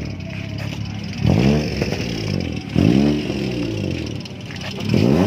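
Car engine being revved three times: each rev shoots up in pitch and slides back down as it drops toward idle.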